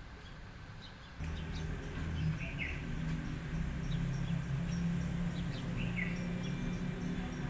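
Outdoor ambience: a few short bird chirps over a low steady hum that starts about a second in.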